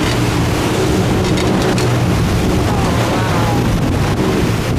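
Motorboat engine running at speed over the rush of churning, turbulent water, as a fast boat powers through a tidal race.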